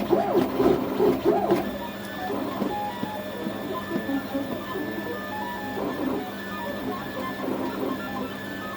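5th-generation MakerBot Replicator 3D printer running a print: its stepper motors give a steady hum of short tones that jump from pitch to pitch as the print head changes moves.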